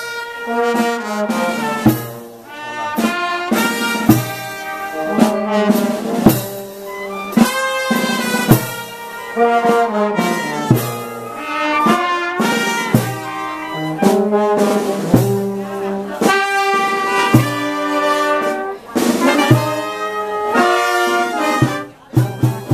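Brass band playing a processional tune, with trombones and large low brass horns carrying sustained melodic notes over frequent percussion strokes. The music dips briefly near the end.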